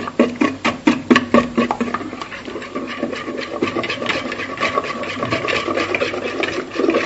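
Wire whisk beating eggs and liquid batter in a plastic mixing bowl, quick repeated clicks and scrapes of the wires against the bowl, about three or four strokes a second.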